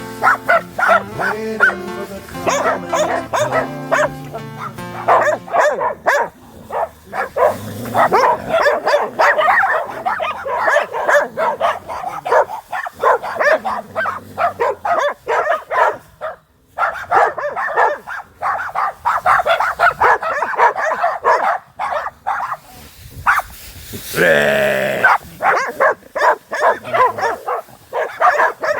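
Several dogs barking rapidly and almost without pause, with one drawn-out, wavering call about 24 seconds in. Background music plays under the barking in the first few seconds.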